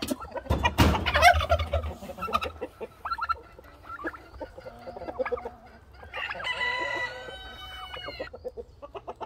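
Chickens clucking, with a rooster crowing about six seconds in: one long call, falling slightly in pitch, lasting about two seconds. Near the start a turkey gobbles loudly for about a second and a half.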